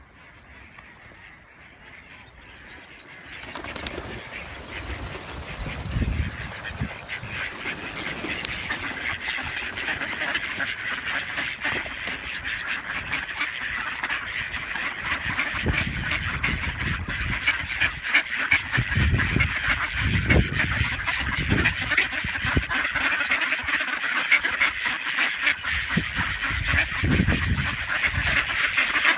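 A large flock of mallards quacking in a dense, continuous chorus. It starts faint and turns loud from about four seconds in, staying loud as the ducks crowd close.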